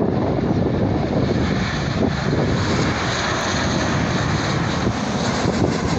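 Jet airliner's engines on landing approach, a steady loud rushing noise as the aircraft passes low overhead.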